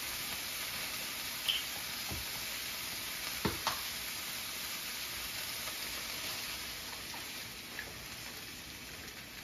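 Chopped kale with garlic and butter sizzling in a skillet, a steady frying hiss with a few light clicks. The sizzle eases off near the end as heavy cream is poured into the pan.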